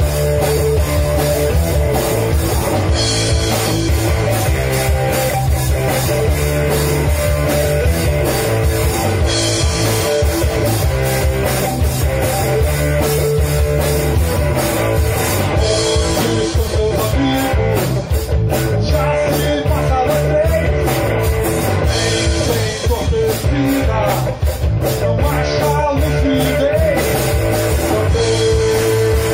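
Live rock power trio of electric guitar, bass guitar and drum kit playing loudly.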